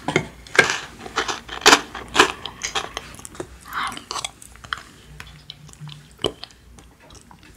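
Close-up chewing of Maltesers, the crisp malted-milk centres crunching between the teeth. The crackles come thick for the first few seconds, then thin out to a few scattered crunches.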